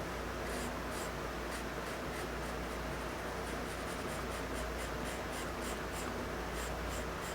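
Pencil scratching across drawing paper in many short, quick strokes, laying in the elephant's tusk with a white pencil, over a faint steady low hum.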